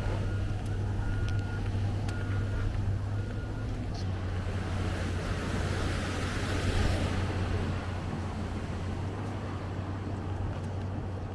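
A vehicle's reversing alarm beeps about once a second for the first few seconds over a steady low rumble. A swell of rushing noise rises and fades about six to seven seconds in.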